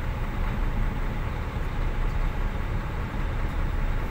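Heavy diesel engines running: a steady, even low rumble with no change in pitch, heard from inside a vehicle cab while an excavator works close by.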